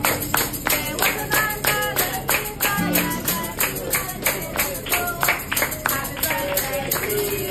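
Restaurant servers singing a birthday song over a steady beat of hand claps, about three a second.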